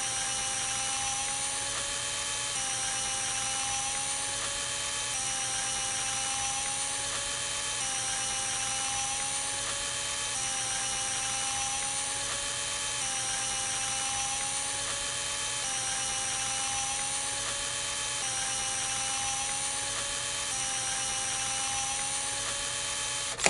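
Looped VHS tape-rewind sound effect: a steady mechanical whir with hiss and a high whine, its pattern repeating about every two and a half seconds, cutting off suddenly at the end.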